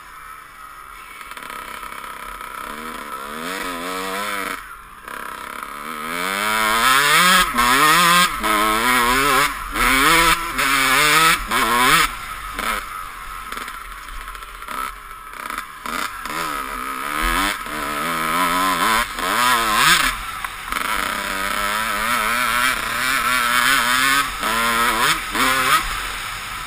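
Dirt bike engine being ridden hard over rough ground, its pitch repeatedly climbing and falling with the throttle, louder from about seven seconds in.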